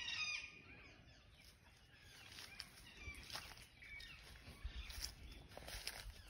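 Birds chirping faintly, with a quick run of falling calls at the very start and scattered short chirps after. Soft footsteps and a few knocks and clicks sound under them.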